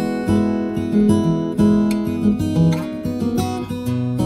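Background music: acoustic guitar played with strummed chords and ringing notes.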